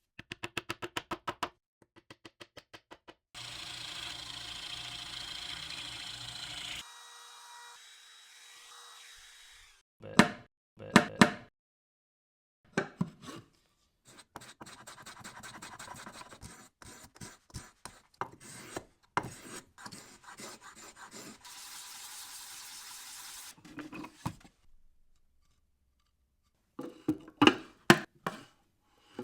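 A series of short, edited woodworking sounds: quick rhythmic rubbing or rasping strokes on wood, a few seconds of steady noise, sharp knocks, and more scattered scraping and tapping. Each piece starts and stops abruptly.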